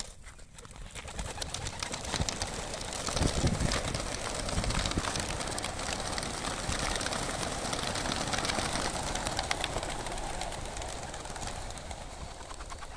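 Flock of racing pigeons released from crates, their wings clattering and flapping in a dense rush as they take off together. It swells about a second in, is loudest a few seconds later and slowly thins out near the end as the birds fly off.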